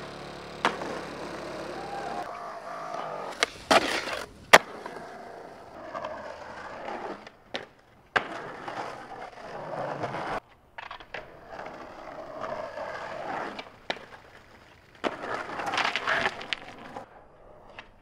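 Skateboard wheels rolling on concrete, broken by sharp cracks of tail pops and landings, the loudest about four seconds in, in a run of short clips cut together.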